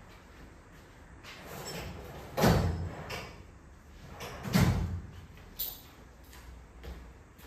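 Two loud bangs about two seconds apart, with a few lighter knocks around them.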